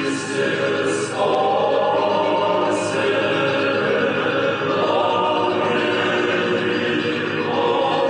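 Background choral music: a choir singing sustained chords.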